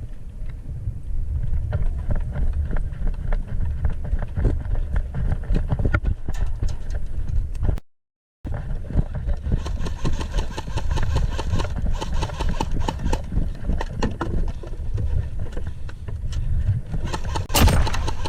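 Steady low rumble of wind and handling noise on a carried camera, with a run of short crunching steps and knocks throughout. The sound cuts out for about half a second about 8 s in, and a louder knock comes near the end.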